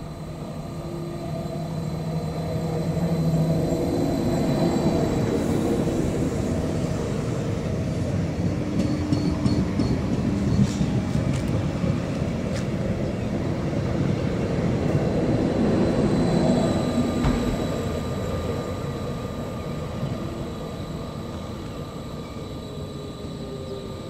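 Stadler FLIRT electric multiple unit passing along the platform. The hum of its running gear and wheels on the rails swells as the cars go by and fades as the train moves off.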